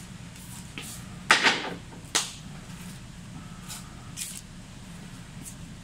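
A wooden pallet set down onto a concrete floor: a loud clatter a little over a second in, then a sharper knock just after two seconds, with a few fainter clicks later.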